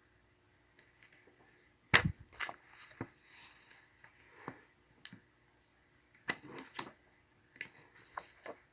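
Desk sounds of someone studying with a workbook: a sharp knock of something set down on the desk about two seconds in, then scattered clicks and taps of a pen, with short rustles of paper pages.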